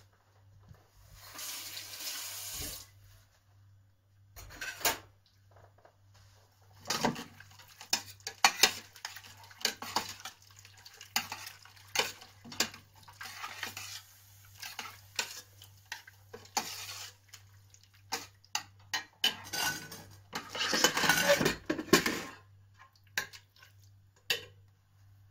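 A metal spoon stirring chopped vegetables in a stainless steel pot, with repeated clinks and scrapes of metal on metal that are thickest a few seconds before the end. There is a brief rustle about a second in.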